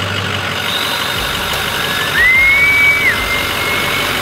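Turbocharged pickup truck engine running, with a short rise in level about two seconds in that brings up a high whistle, typical of turbo spool, which rises, holds for about a second and falls away.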